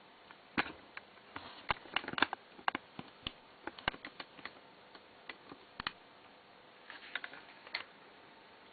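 Irregular sharp clicks and light taps of small hard objects being handled, coming in uneven clusters with short pauses between them, as when a car radio is worked on by hand during repair.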